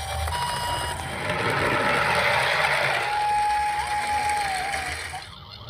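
Japanese ambulance two-tone hi-lo siren alternating in the first second, followed by a rushing noise for about two seconds, then a single steady siren tone that wavers and stops. A low rumble runs underneath.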